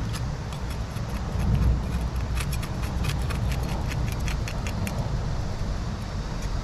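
A large knife scraping a freshly caught fish on a rock, a run of quick, sharp scrapes in the middle as the scales come off, over a low, steady rumble.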